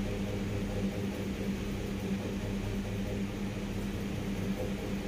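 Steady low hum with an even hiss of moving air from a ceiling fan running.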